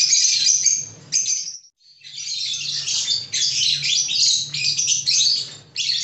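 Caged lovebirds and budgerigars chattering and chirping in a dense, continuous stream of shrill calls, briefly cutting out about one and a half seconds in and then resuming.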